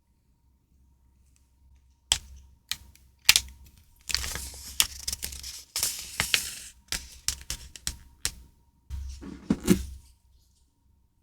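Hands handling paper and plastic stationery packaging: a string of sharp clicks and taps mixed with rustling, with a fuller crinkling rustle near the end.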